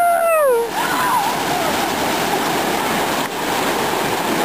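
Creek water rushing steadily down the sandstone chute of a natural water slide. At the start, a person's high voice slides down in pitch for well under a second.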